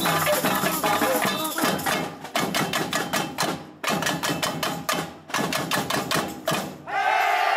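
Samba batucada drums playing rapid, sharp strokes broken by short stops, then cutting off together near the end as loud shouting voices rise.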